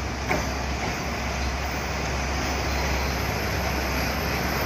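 Diesel railcars running with a steady low rumble as a train approaches the platform, with a single click about a third of a second in.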